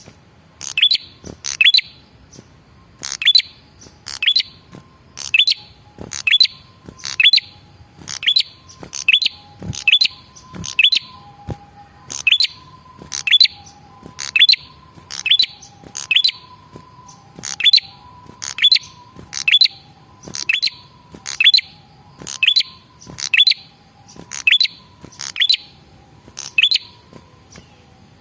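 Male red-headed prenjak, a tailorbird, calling: a sharp, high double note repeated about once a second.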